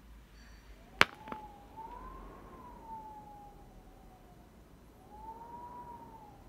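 Strong wind whistling through a gap: a single thin tone that rises and falls slowly and unevenly, fading and returning. A sharp click sounds about a second in, with a weaker one just after.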